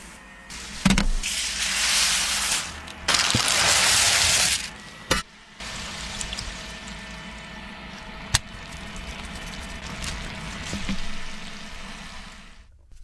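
Kitchen food-preparation sounds: stretches of hiss, like frying or pouring liquid, that change abruptly several times, with a few sharp clicks and knocks.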